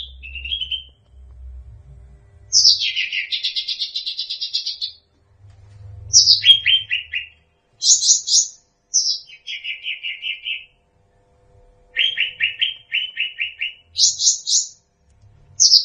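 Cucak rante singing in short, repeated phrases. Each phrase is a quick run of clipped notes, some opening with a sharp downward-sliding note, with a longer rattling run a few seconds in and brief pauses between phrases.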